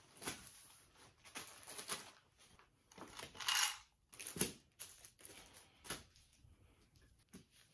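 Packaged decorations being handled and laid out on a cloth-covered table: scattered plastic rustles and light taps, the loudest a crinkle about three and a half seconds in.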